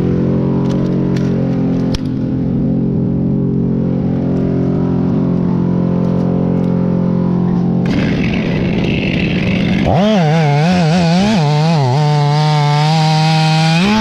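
Chainsaw cutting through pine wood, revved up about eight seconds in, its engine pitch dipping and rising as the chain bogs and recovers in the cut. Before that, a steady engine hum.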